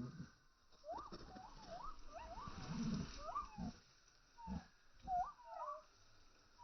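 Chickens making a run of short, curling chirps, with several low thumps and rustles among them.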